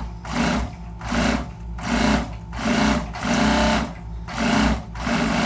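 Juki industrial sewing machine sewing in short repeated bursts, about one every three-quarters of a second, over a steady low motor hum. It runs without the reported funny noise; the mechanic judges that it sounds good.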